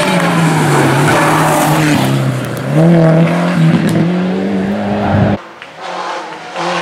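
Rally car engine running at hard throttle, its pitch falling and then climbing again as it works through the gears. The sound drops away abruptly about five seconds in, and engine noise returns near the end.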